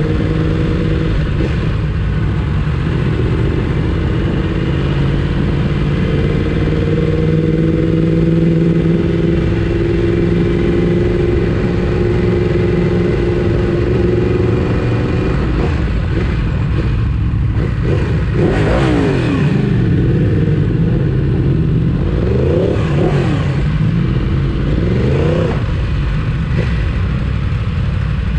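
Motorcycle engine running at a steady pitch while riding, then revving up and down several times in the second half.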